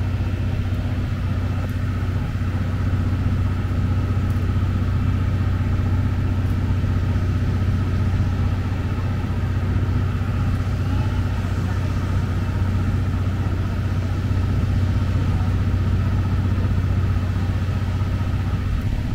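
Steady low rumble and hum of a moving JNR 12-series passenger coach, heard from inside at an open window, with a faint steady whine above it.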